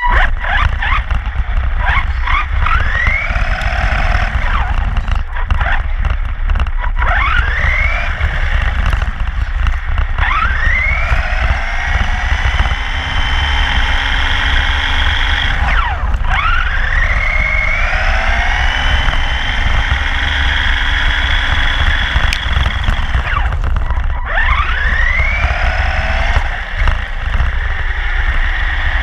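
Electric RC car's motor and drivetrain whining, the pitch rising each time it accelerates, holding high at speed and dropping sharply when it slows, several times over, over a constant low rumble from the chassis running on the road.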